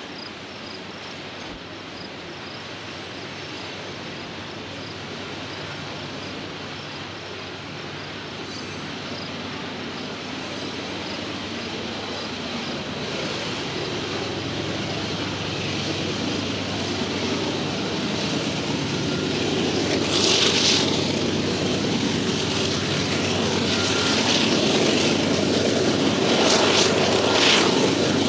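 Union Pacific freight train rolling past: steady rail noise with faint regular wheel clicks at first, and a diesel locomotive's engine growing steadily louder as it nears. Brief hissy bursts come in near the end.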